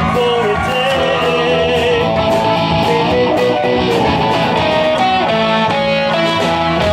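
Rock music led by electric guitar, with a steady beat and a singing voice.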